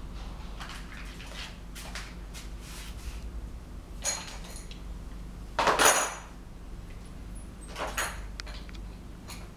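Metallic clinks and knocks of a handheld angle grinder being carried and set down on a wooden board, with no motor running. The loudest is a short clatter about six seconds in, with smaller knocks about four and eight seconds in, over a steady low hum.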